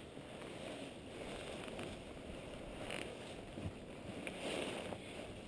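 Wind buffeting a head-mounted camera's microphone: an even, steady noise with a few faint knocks.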